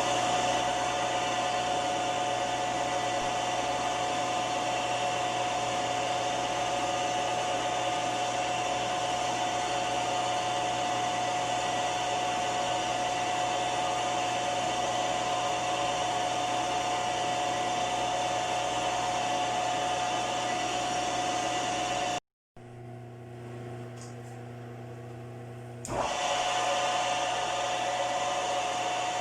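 Milling machine running steadily with a constant whine. About two-thirds of the way through it cuts off abruptly, a quieter hum runs for a few seconds, then the machine sound comes back at full level.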